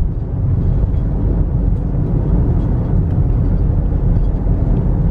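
Steady road noise inside a moving car: a low rumble of tyres and engine heard through the cabin.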